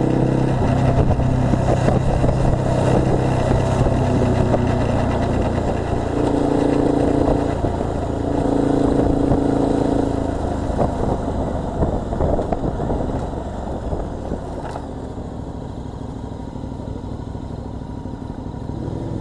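Motorcycle engine running under way, heard from on board with heavy wind rush over the microphone. About two-thirds of the way through it eases off as the bike slows, leaving a quieter, steadier engine sound near the end.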